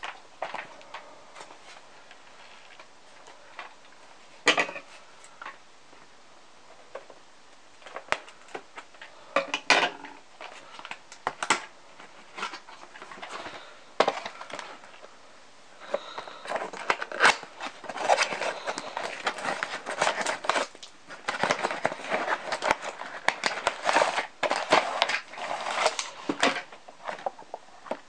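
Cardboard toy box and its plastic packaging being handled on a wooden table. Scattered taps and knocks come first, then from about halfway through there is close, busy rustling and crinkling as the box is opened.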